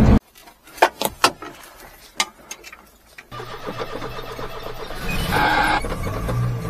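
A few sharp clicks, then a mini truck's small engine starts about three seconds in and runs steadily. The truck is a supercharged Daihatsu Hijet.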